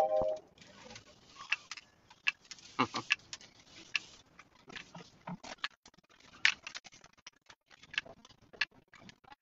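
Crinkly rustling of an artificial cabbage's plastic leaves as it is handled and pushed into a moss wreath, with irregular small clicks and crackles. A brief pitched sound, like a hum, right at the start.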